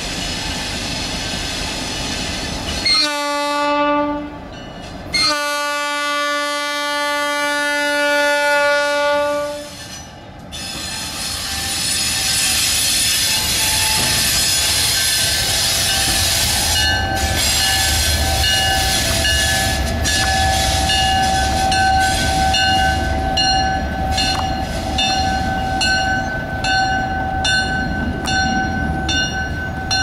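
EMD GP38-2 diesel locomotive's air horn sounding for a grade crossing: a short blast about three seconds in, then a long blast of about four and a half seconds, a chord of several tones. The locomotive then rolls past, its non-turbocharged V16 diesel rumbling with a high steady squeal from the wheels and regular clicking over the rail joints in the second half.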